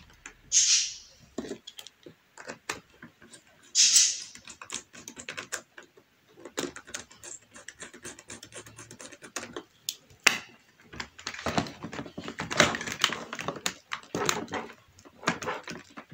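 Close handling noise: quick clicks, taps and scrapes of a plastic Bluetooth headset unit and its mount being pushed and fitted against a motorcycle helmet shell and liner. There are two short hissing sounds, one near the start and one about four seconds in, and the scraping grows denser over the last few seconds.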